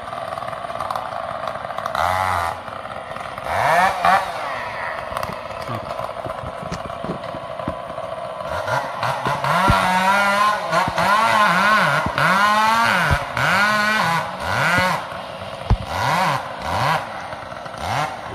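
Chainsaw running as a pine tree is hand felled, its engine revving up and falling back again and again through the second half.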